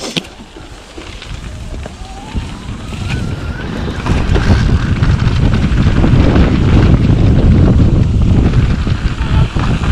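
Wind buffeting the camera's microphone on a mountain bike descending a dirt trail, with the tyres and bike rattling over rough ground. It grows much louder about four seconds in as the bike picks up speed.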